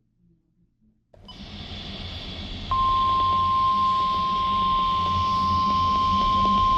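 Weather radio receiver opening up with a steady hiss about a second in, then the NOAA Weather Radio warning alarm tone, a single steady beep of about 1050 Hz, starts and holds: the signal that a new warning broadcast is about to follow.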